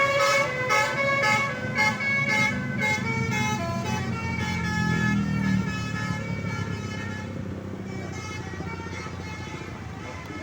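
A bus's multi-tone musical horn playing a tune of quick stepped notes, several a second, fading away as it goes. A low engine rumble runs beneath it in the middle.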